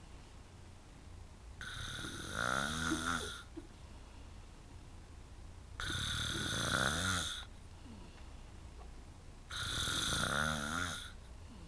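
A man snoring in deep sleep: three long snores about four seconds apart.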